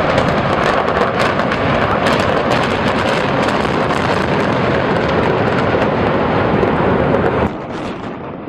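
Building demolition blast and collapse: a loud, steady roar thick with rapid cracks and crackles, which cuts off suddenly about seven and a half seconds in.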